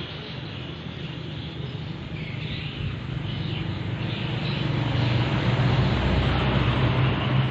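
A low, steady engine-like hum over outdoor background noise, growing louder through the second half.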